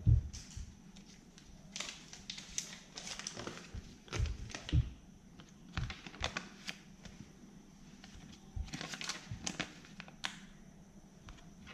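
Plastic and foil candy wrappers crinkling and rustling in the hands, with irregular light clicks and knocks as the packaging is handled. A soft thump comes right at the start.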